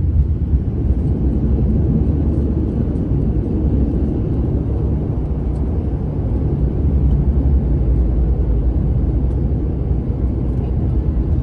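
Cabin noise inside an ATR 72-500 turboprop airliner moving along the runway: a steady, loud low drone and rumble from its twin Pratt & Whitney PW127 turboprop engines and propellers.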